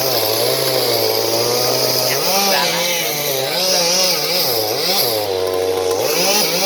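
Chainsaw running and cutting wood, its engine pitch rising and falling repeatedly as it is throttled and loaded.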